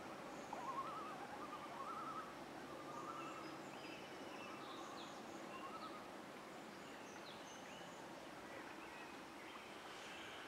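Faint early-morning bird chorus: several birds singing and calling, with warbling phrases in the first few seconds and short high chirps scattered throughout, over a steady low background hum.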